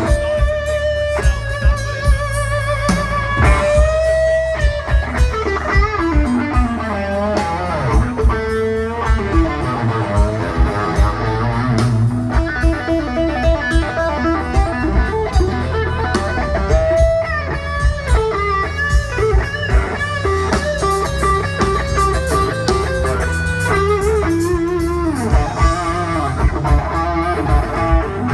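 Live rock band playing an electric guitar lead with bent and wavering notes, over bass guitar and a steady drum beat.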